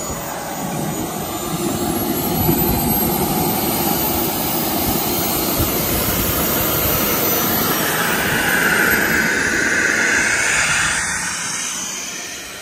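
Small gas-turbine engine of a large radio-controlled F-86 Sabre model jet running at taxi power: a high whine over a rush of air. It grows louder as the model taxis up to and past the microphone, then drops off near the end.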